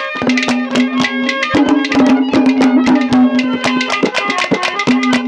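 Instrumental interlude of live Haryanvi ragni accompaniment: a hand drum playing a fast, dense rhythm under a melody of long held notes that steps from pitch to pitch.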